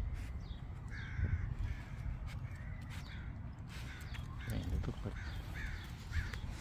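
A bird calling, a few short calls about a second in and several more near the end, over a steady low rumble.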